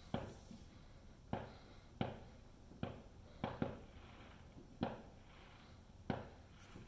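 Distant fireworks going off: about eight sharp bangs at uneven intervals, each trailing off in a short echo, heard from indoors through a window.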